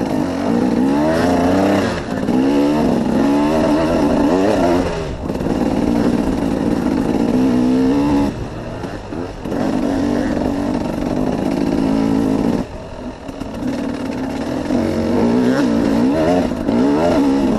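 KTM 300 two-stroke dirt bike engine on the move, revving up and falling back again and again as the throttle is worked. It eases off briefly about eight seconds in and again about thirteen seconds in.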